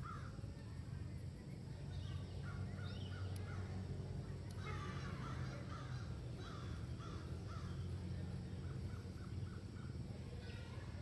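Animal calls: short harsh notes in quick runs of four or five, coming several times, over a steady low hum.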